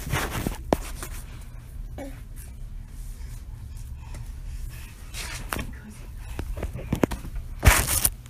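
A few scattered knocks and clicks over a steady low hum, the loudest knock near the end.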